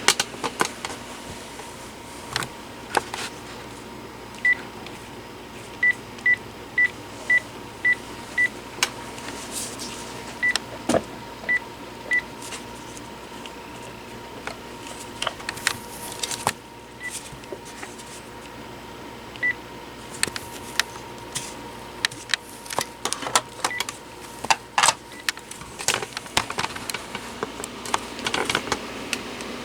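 Panasonic KX-TG6841 cordless phone handset key beeps: short single-pitch beeps at irregular intervals, one for each button press, with the clicks of the keys and handling of the handset in between.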